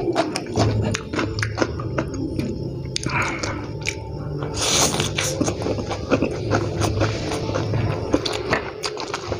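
Close-miked eating of fried instant noodles: wet chewing and lip smacks, with a strong slurp of noodles about five seconds in.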